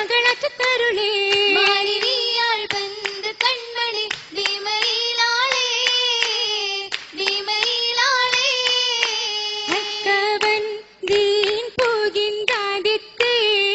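Girls singing an Oppana song together in one melody line, with sharp hand claps in time to the song.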